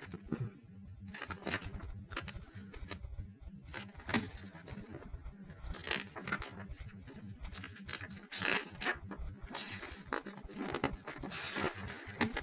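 Pages of a thin paper instruction booklet being turned by hand: irregular crisp rustles and flicks of paper.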